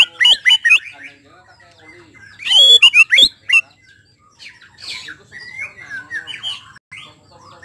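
White-rumped shama singing: two loud bursts of quick, rich whistled phrases with sharp sweeping notes, at the start and again about two and a half seconds in, followed by softer, varied notes.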